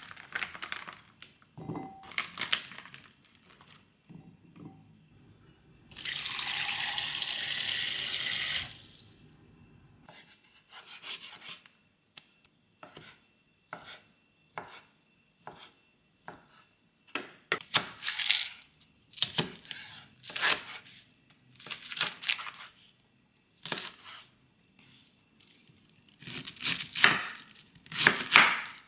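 Kitchen food preparation: a water tap runs for a few seconds, followed by a long run of irregular knife strokes on a cutting board, with a few scattered clicks and knocks.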